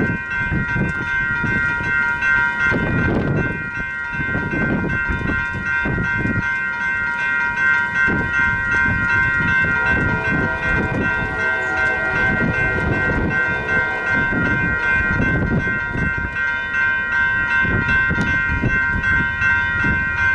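Railroad crossing warning bell ringing steadily, with gusty wind buffeting the microphone. From about halfway through, the faint horn of the approaching freight locomotive joins in.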